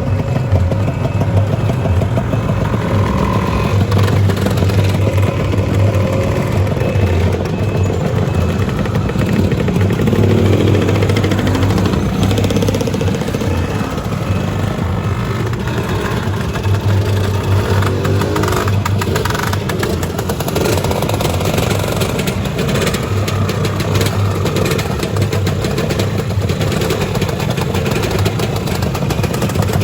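Two-stroke Lambretta scooter engines running together, loud and continuous, as a group of scooters rides off.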